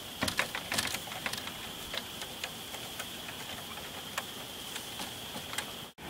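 Hand screwdriver driving a screw that mounts a screen door cross bar: a run of irregular light clicks and ticks, densest in the first second and a half, then sparser. The sound drops out briefly near the end.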